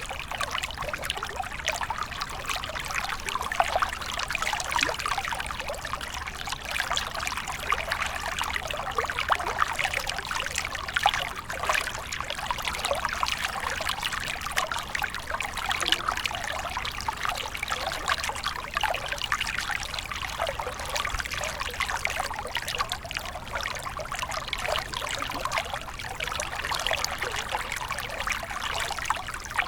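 Flowing water trickling and splashing steadily, a dense, even stream of small splashes with no breaks.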